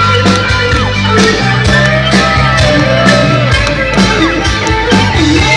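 Live rock band playing an instrumental stretch of a song, with steady drums, held bass notes and guitar, and shouts from the audience mixed in.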